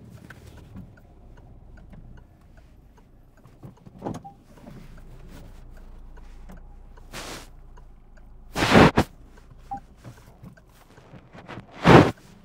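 Car engine idling inside the cabin, a low steady hum, with a few loud short whooshing bursts about seven, nine and twelve seconds in.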